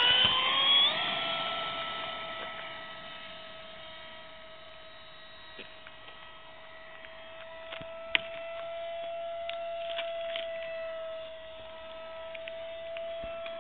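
Electric motor and propeller of a radio-controlled model plane whining, rising sharply in pitch at full throttle for takeoff in the first second, then holding a steady high whine that fades as the plane climbs away and swells again around eight to ten seconds in. A single sharp click about eight seconds in.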